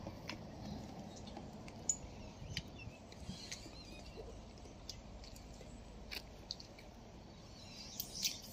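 Faint outdoor background with a low rumble, scattered with short high chirps and clicks at irregular intervals.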